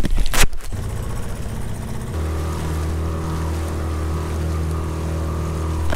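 Outboard motor on a small boat running under way, a steady engine hum that settles and strengthens about two seconds in.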